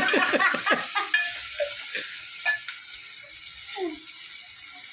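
Tomatoes and spices frying in oil in a steel pot, sizzling steadily, with a spoon stirring in the pot and a couple of light clicks against it around two seconds in.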